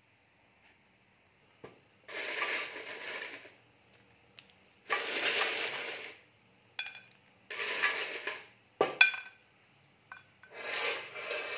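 Foil lining an air fryer basket crinkling and toasted croutons rustling in four bursts of about a second each, as handfuls of croutons are scooped up, with a few sharp clicks between them as pieces land on a plate.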